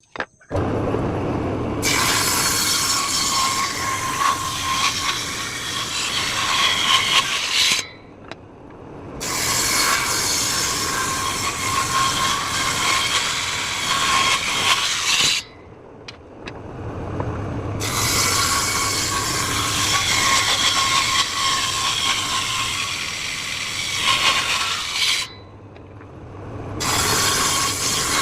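Table saw running and cutting wood, a steady whine over loud noise. It drops away abruptly three times and comes back each time.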